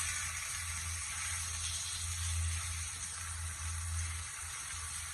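Food sizzling on a hot grill: a steady, even hiss.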